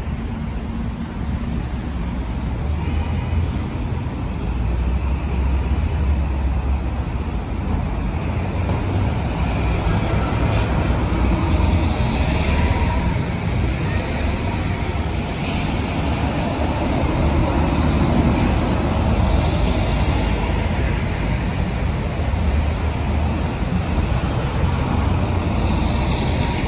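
Diesel MCI coach buses driving by with engines running, over a steady traffic rumble. A brief air-brake hiss about halfway through.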